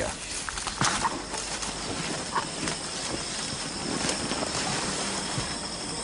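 African elephant feeding on acacia branches: leaves rustling and twigs cracking in irregular small snaps. A steady high thin tone runs underneath, and a brief chirp comes about two and a half seconds in.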